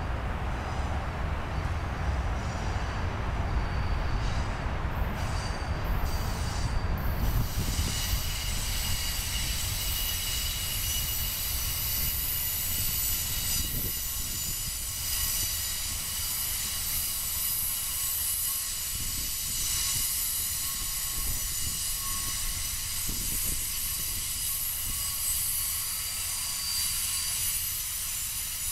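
Amtrak Superliner bilevel passenger cars rolling slowly past, with a low rumble at first. From about seven seconds in, the wheels set up a steady chorus of high-pitched squealing and hiss that lasts as the cars go by.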